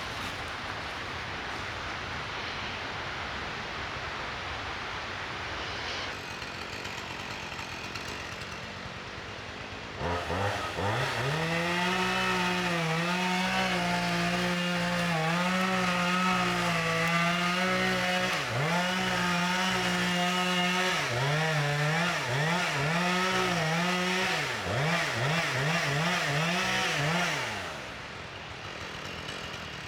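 A steady hiss, then about ten seconds in a chainsaw comes in at high revs, making the back cut to fell a leaning tree. The engine holds steady under load, then its revs dip and rise several times before it cuts off a couple of seconds before the end.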